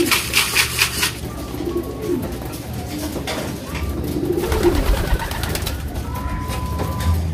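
Domestic homing pigeons cooing in a loft: low, rolling coos come several times. In the first second there is a quick flurry of fluttering wingbeats.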